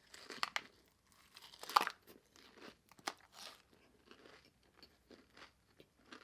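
A person eating close to the microphone: crunchy bites, the loudest about two seconds in, followed by softer chewing.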